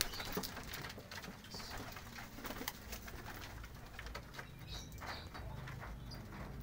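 Domestic pigeons cooing, with scattered light clicks throughout and a brief flutter of wings at the start.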